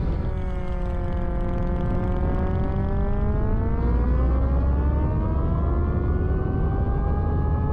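Siren on a radio-controlled model dive bomber, wailing on one held note. The pitch sags a little in the first second or two, then climbs slowly and steadily, over a low rumble.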